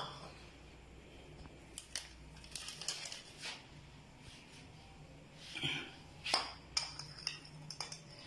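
Metal spoon tapping and scraping against ceramic bowls as baking ingredients are handled: a sharp click at the start, then scattered faint clinks and scrapes.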